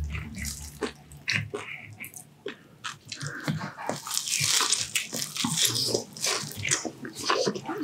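Close-miked chewing of crispy deep-fried pork intestine (chicharon bulaklak): a run of sharp, crackly crunches, busiest and loudest a little past the middle.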